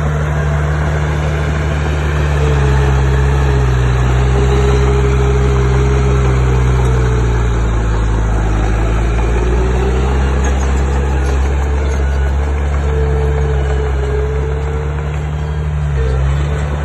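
Bulldozer's diesel engine running steadily, its note sagging about halfway through, picking back up and dipping briefly again near the end.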